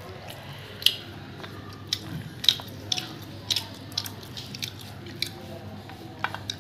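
Close-up eating sounds from a person chewing roti with chickpea curry: wet mouth smacks and chewing clicks at an irregular pace, about one or two a second.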